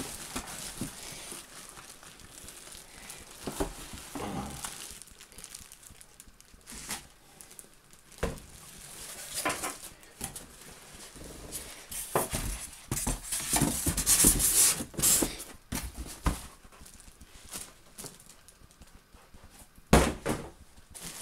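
Plastic wrapping crinkling and cardboard box rubbing and knocking as an air fryer in a plastic bag is lifted out of its packaging. The rustling is thickest about two-thirds of the way through.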